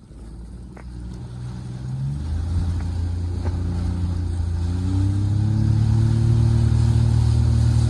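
Jet ski engine speeding up, its pitch stepping up about two seconds in and again about five seconds in, then running steadily at speed.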